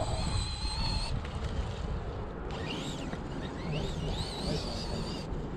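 Tekno MT48.3 electric RC monster truck's brushless motor whining as it is driven on a 6S LiPo: a steady whine that cuts off about a second in, then returns, rising and falling with the throttle. Wind rumbles on the microphone throughout.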